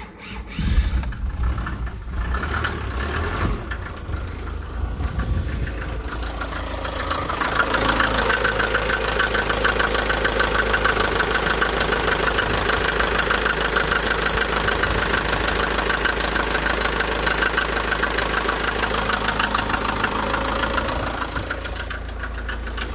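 SsangYong Musso turbodiesel engine starting about a second in and then running steadily, with the vacuum hose to the injection pump's vacuum shut-off pulled off. Its speed rises over a few seconds to a steady higher pitch and eases back near the end.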